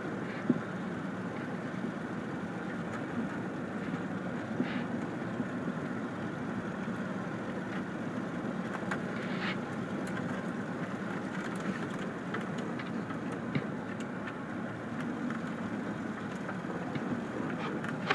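Steady driving noise heard from inside a car or truck on a gravel road: a low engine hum under tyre noise, with scattered small clicks and ticks.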